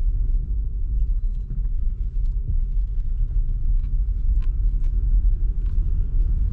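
Steady low rumble of a vehicle's engine and road noise heard from inside the cab while driving slowly, with a few light ticks and rattles.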